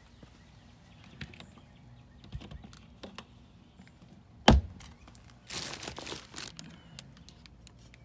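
An RV's exterior storage bay door being opened and handled: small latch clicks, one loud sharp knock about halfway through, then about a second of rustling.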